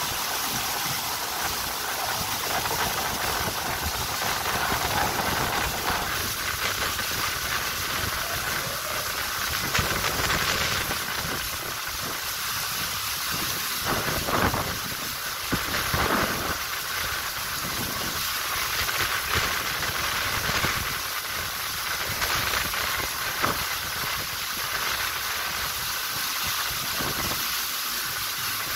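Water rushing steadily over the surface of a bowl water slide: a continuous hiss, with a few short louder sounds about halfway through.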